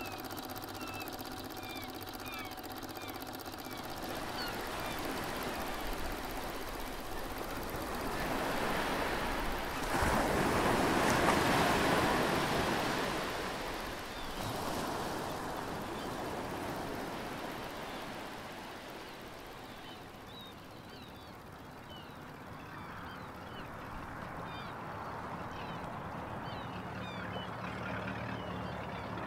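Sea waves washing in, swelling to a louder surge about ten seconds in and then easing off. Small birds chirp at the start and again through the last third.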